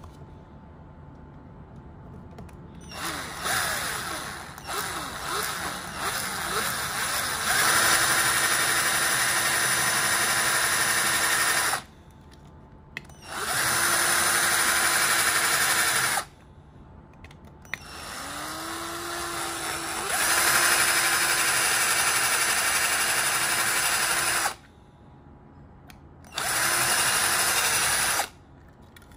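Power drill with a twist bit drilling out the rivet post of a Hot Wheels die-cast car, in four runs of a few seconds each. The first starts about three seconds in, slow and uneven. Later the motor's whine rises in pitch as the trigger is squeezed, and each run cuts off sharply.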